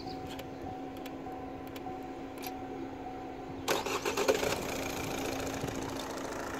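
Opel 1.7 CDTI four-cylinder diesel engine (A17DTJ/A17DTR) idling steadily with a light diesel clatter. Between about three and a half and four and a half seconds in, a brief burst of louder, uneven noise sits over it.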